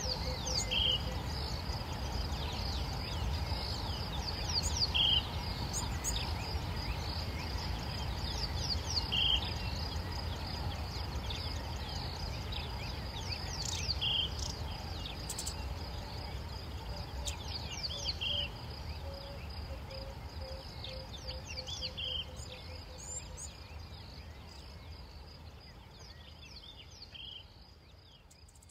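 Savanna bush ambience: a steady high insect drone and scattered bird chirps, with one short bird call repeating about every four seconds, over a low steady rumble. It fades out near the end.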